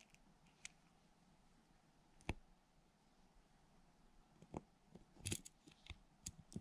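Mostly near silence, broken by a few sharp, light clicks and taps of a small tool against the plastic and metal parts of a baitcasting reel's side plate. One click comes about two seconds in, and a quick cluster of clicks comes about five seconds in.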